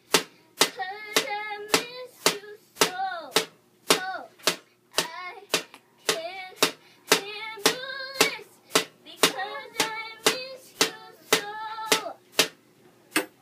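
A child striking a drum in a steady beat, about two sharp strikes a second, while singing along with gliding, up-and-down notes between the beats.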